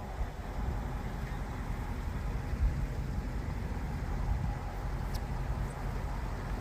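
Dodge Challenger Scat Pack's 392 Hemi V8 running steadily through its exhaust, a low rumble, with a brief high chirp about five seconds in.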